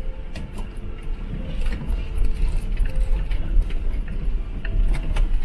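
Cabin noise of a T1N Sprinter van on a rough dirt road: a steady deep rumble from the tyres and suspension, with many short knocks and rattles from the van's body and loose contents.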